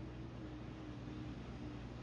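Washing machine running: a steady low hum and even whooshing noise, with a faint wavering motor whine.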